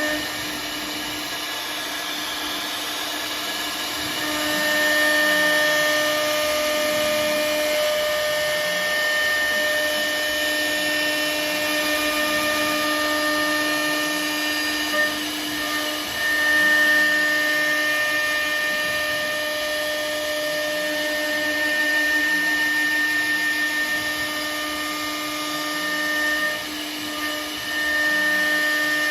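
CNC router spindle running and milling, a steady high whine over the noise of cutting, swelling and easing in loudness as the cutter moves, with brief dips twice.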